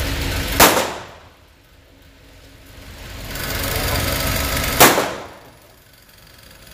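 Two gunshots about four seconds apart, echoing in an indoor shooting range. After each shot the steady background hum drops away and slowly swells back.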